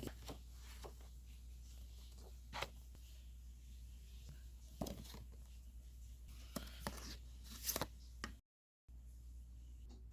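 Scattered crinkles, clicks and short tearing sounds of an album's packaging being unwrapped and handled, a few at a time with pauses between, over a low steady hum. The sound cuts out completely for about half a second near the end.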